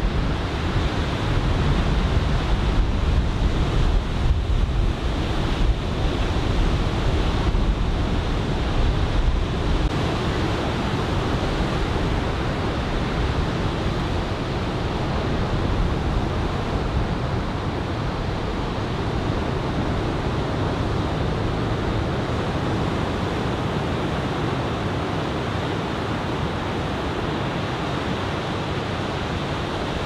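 Ocean surf breaking and washing in, from chest-high typhoon swell. Wind buffets the microphone with a gusty low rumble for about the first ten seconds, then eases.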